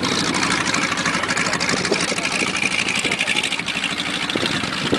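Four radial engines of a Boeing B-17 Flying Fortress running at a distance, a steady drone with a fast pulsing in it.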